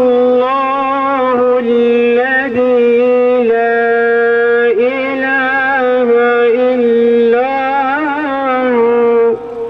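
A man's voice singing one long, drawn-out melodic line into a microphone, holding its notes and turning them in ornamented bends. It breaks off about nine seconds in.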